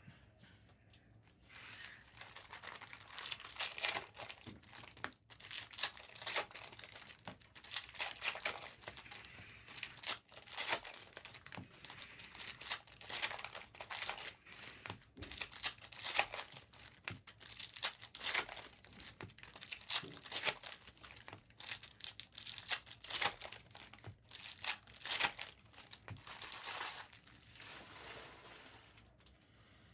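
Plastic wrapping of trading card boxes and packs being torn open and handled: a dense, irregular crinkling and crackling that goes on with short pauses for almost half a minute.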